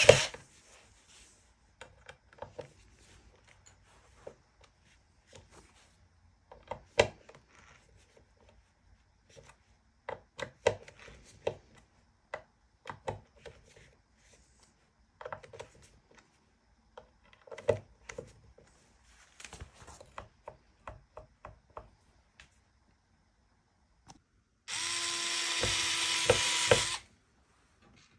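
A small electric drill motor runs in two short steady bursts: one stops just after the start, and a longer one of about two seconds comes near the end. Between them, scattered light clicks and knocks of tools and guitar hardware being handled.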